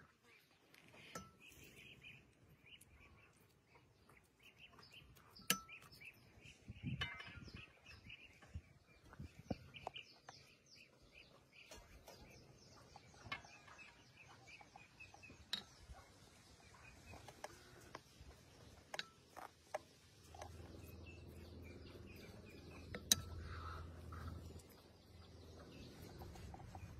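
Faint small birds chirping, with scattered sharp clicks and knocks. About three-quarters of the way through, a low steady hum joins in.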